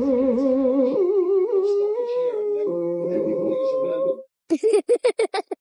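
A dog's long, warbling howl-like vocalisation with a wavering pitch that steps up and down, like a dog singing, then a quick run of short yips about six a second near the end.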